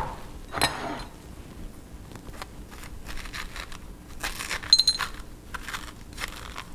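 A spoon scraping seeds and stringy pulp out of a halved raw spaghetti squash in irregular short scrapes, with a couple of light clinks, as of metal on a glass bowl, about two-thirds of the way through.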